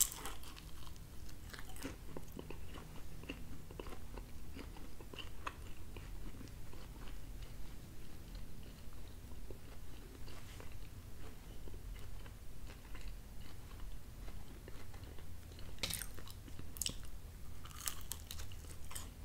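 A person biting into and chewing a slice of thin-crust pizza, with crisp bites at the start and a few more near the end between quieter chewing.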